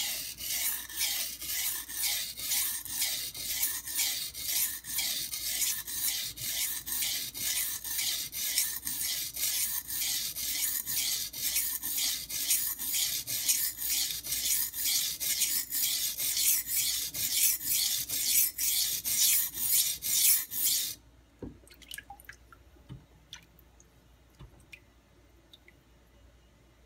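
A high-carbon stainless steel kitchen knife blade being stroked back and forth on a coarse 180 grit Nubatama Ume waterstone. It makes an even, gritty rasp at about two strokes a second, from a coarse stone cutting the steel quickly and raising a burr. The strokes stop abruptly about three-quarters of the way through, leaving only a few faint ticks.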